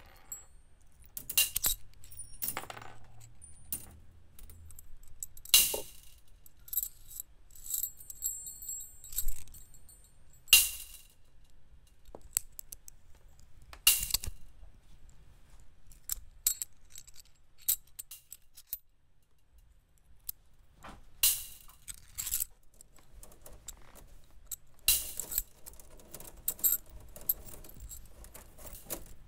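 Wire sphere sculpture clinking and jangling as a body moves against it, in irregular metallic hits, each with a short high ring, with a quieter stretch around the middle.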